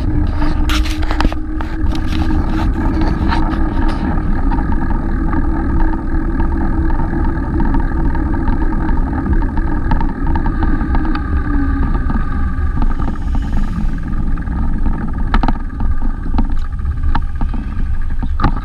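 Steady low rumble of riding along a paved city street, with a low hum that stops about twelve seconds in and scattered knocks from bumps in the road.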